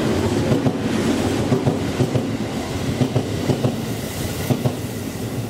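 JR Central 373 series electric train running through a station at speed: a steady rumble with wheels clacking over the rail joints. It eases off slightly toward the end as the last cars go by.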